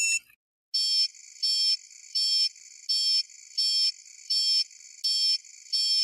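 Electronic alarm beeping: a short high tone cuts off in the first half-second, then a high, buzzy beep repeats evenly about every 0.7 s, eight times.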